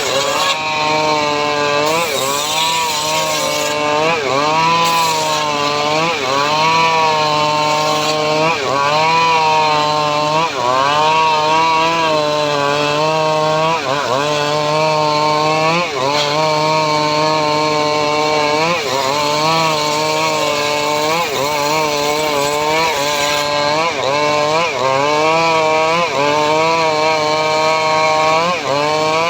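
Engine of a homemade srekel sawmill running continuously while its saw cuts teak wood. The engine pitch repeatedly dips and recovers about every one and a half to two seconds as the cut loads it.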